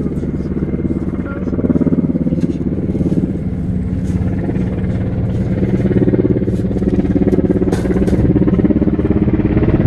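Helicopter passing overhead: a loud, steady rotor beat and engine drone that grows louder about two seconds in and again about six seconds in. Faint scattered clicks sound over it.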